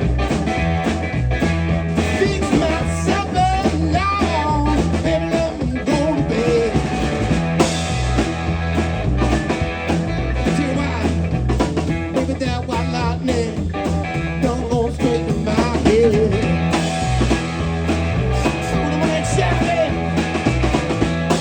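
A live blues-rock trio playing an instrumental passage: a lead guitar line with bent, wavering notes over a pulsing bass and drums.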